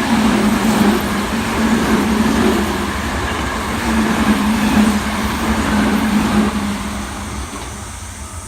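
Toei 5300-series commuter train passing a level crossing: loud wheel and running noise with a steady low hum under it, fading over the last couple of seconds as the train moves away.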